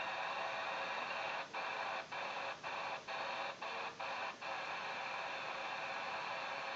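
CB radio receiver on 27.145 MHz giving out a steady buzzy interference hiss. About a second and a half in, the noise drops out briefly seven times, roughly twice a second, then runs on steadily. The interference is one the operator believes to be a harmonic from the signalling beacon systems of a nearby train station.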